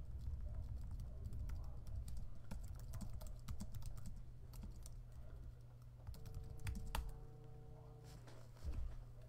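Typing on a computer keyboard: irregular key clicks over a steady low hum. A faint steady tone sounds for about two seconds after the middle, and a soft thump comes near the end.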